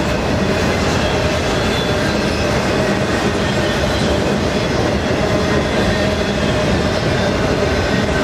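Autorack freight cars of a vehicle train rolling past close by: a loud, steady rumble of steel wheels on rail, with a thin steady tone running through it.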